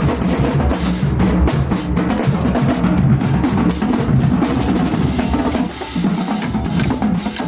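Marching band drumline playing a cadence: snare drums and bass drums beating out a steady rhythm.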